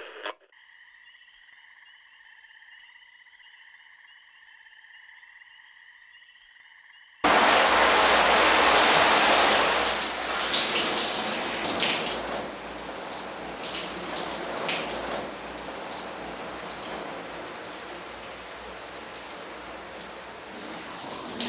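Shower head spraying water over a person washing their hair: a steady rushing hiss that starts abruptly about seven seconds in, loud at first and then softer and even. Before it there is only a faint, steady high hum.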